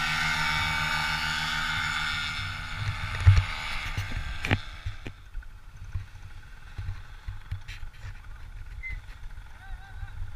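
Paramotor engine running steadily, then dying away over the first few seconds. A heavy thump comes about three seconds in and a sharp knock follows a second later, then low wind rumble on the microphone.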